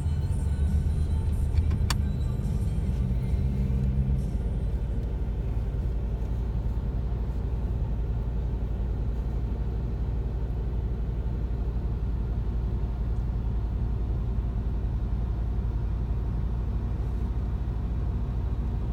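Steady low rumble of a car heard from inside its cabin as it rolls slowly or idles. Background music plays over it and stops about four seconds in.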